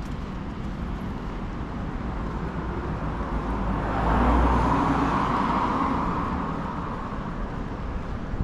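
Street traffic noise with a motor vehicle passing close by: its tyre and engine noise swells from about three seconds in, peaks around four to five seconds with a low rumble, and fades away.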